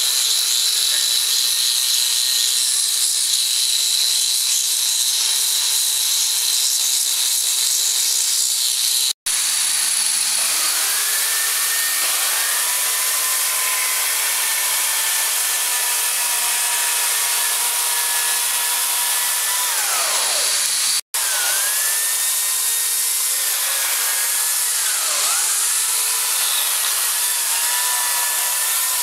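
A handheld electric belt cutter grinding into a wooden log sculpture with a steady high whine. After a brief dropout about nine seconds in, a corded electric chainsaw carves into a log, its motor whine dipping and recovering again and again as the chain bites into the wood.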